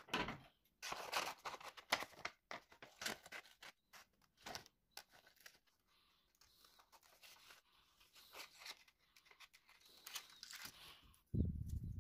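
Scissors snipping through a sheet of notebook paper in irregular short cuts, with the paper rustling as it is handled. A dull thump near the end.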